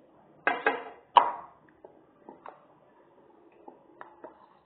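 Tableware being handled: two short loud bursts, then a sharp knock with a brief ring just over a second in, followed by several faint light clicks, as a drinking glass and chopsticks are moved about on the table.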